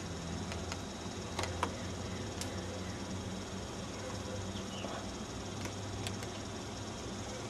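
Steady outdoor background hiss with a low hum, broken by a few sharp clicks, two close together about a second and a half in and another near two and a half seconds.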